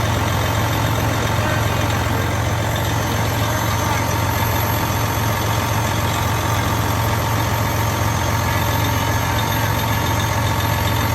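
Semi truck's diesel engine idling with a steady, even low hum.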